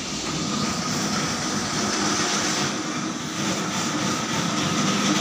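Electric coconut grating machine running steadily as coconut is grated, an even mechanical whir with a faint constant whine.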